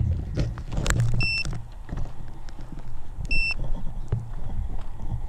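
A small piezo buzzer on an FPV quadcopter gives two short high beeps about two seconds apart, a beacon-style signal from a landed, disarmed quad. Around the beeps are close rustling and knocks as the drone is handled.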